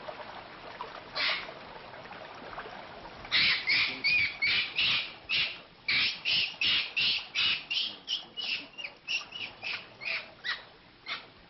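One short high call, then from about three seconds in a rapid series of short high-pitched animal calls, about three a second, growing fainter near the end.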